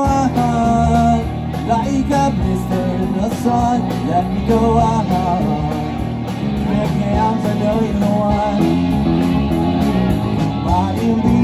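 Live rock band playing, with electric guitars and drums.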